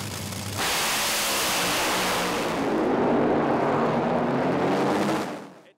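Intro logo sound effect: a loud rushing vehicle sound with a low engine hum underneath, starting abruptly about half a second in and fading out just before the end.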